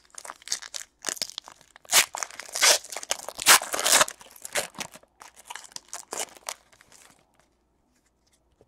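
Foil-lined wrapper of a basketball trading card pack being torn open and crinkled by hand: a run of irregular crackles and rips that stops about seven seconds in.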